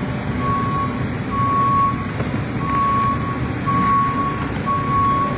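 An electronic warning beeper sounds a single steady high tone in half-second beeps about once a second, five times in all. A low, steady rumble of busy store noise runs underneath.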